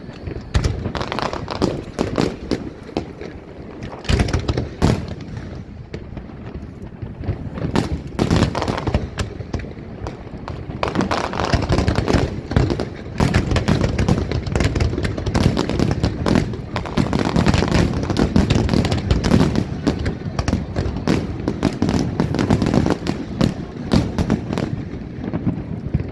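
Fireworks display: a rapid string of booms and crackling bursts, which grows denser and louder about halfway through.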